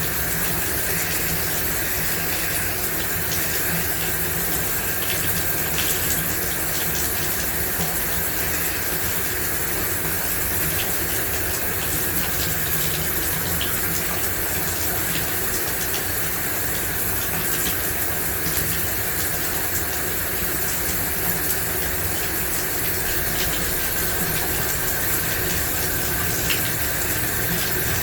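Shower running steadily, water spraying and splashing, with the odd droplet click standing out.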